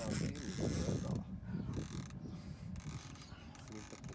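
Fishing reel working under heavy load from a big catfish: the reel's mechanism and drag clicking and whirring in several short spells, fading toward the end.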